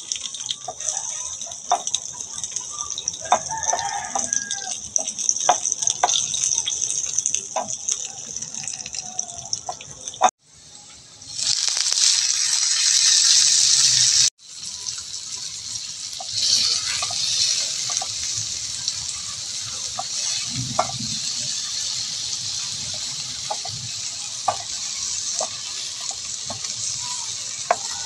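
Sliced onions, then tomatoes, frying in hot oil in a frying pan: a steady sizzle that starts as the onions go in, with scattered light clicks of a utensil against the pan. The sizzle cuts off abruptly twice.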